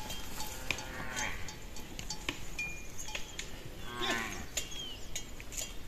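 Livestock calling twice, about a second in and again about four seconds in, over the clinking of animal bells.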